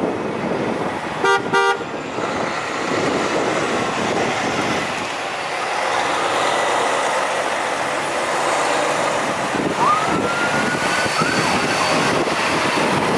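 Fire trucks driving past at low speed, their diesel engines and tyres running steadily, with two short horn blasts about a second in. Around ten seconds in a siren gives a brief rising whoop and a short blip.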